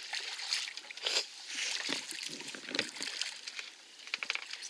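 Hooked smallmouth bass splashing at the water's surface beside the boat as it is drawn in and grabbed by hand, in irregular splashes with a sharper one about a second in.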